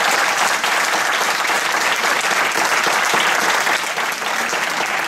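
A roomful of people applauding steadily, easing slightly near the end.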